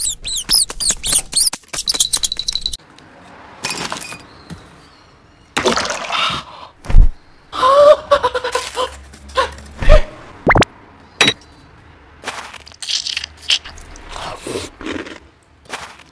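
A fast run of high, squeaky mouse-like chirps, followed by a string of short comic sounds: thumps and brief vocal gasps and exclamations.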